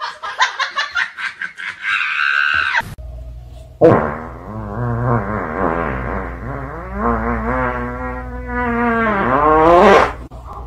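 A small dog's long, drawn-out howling vocalization that wavers up and down in pitch for about six seconds, starting about four seconds in. Before it comes a rapid run of clicks.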